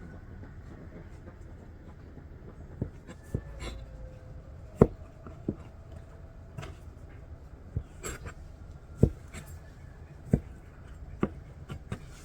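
Irregular sharp knocks and taps, about a dozen, the loudest about five seconds in, over a faint steady background.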